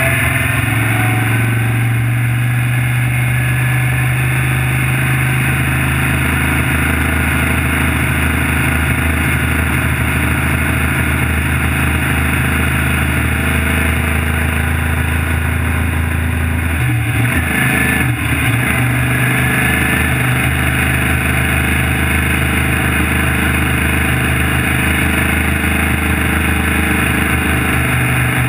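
Off-road trophy truck's engine running steadily as the truck drives at low road speed, with a brief break in the engine note about two-thirds of the way through before it settles back.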